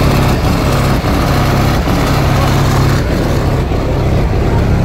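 Car audio subwoofers playing loud deep bass notes that step between pitches every second or so, with a harsh buzz over them.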